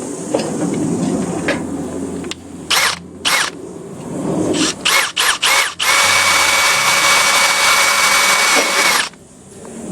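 Power drill with a 1/4 inch bit drilling out a small wire eyelet terminal. It starts with several short trigger blips, then runs steadily for about three seconds before stopping abruptly.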